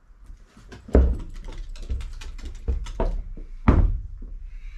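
Unpowered DIY Onewheel-style board rocking under a foot on wooden deck boards, its ends knocking down on the planks. There are two heavy thumps, about a second in and near the end, with lighter knocks between.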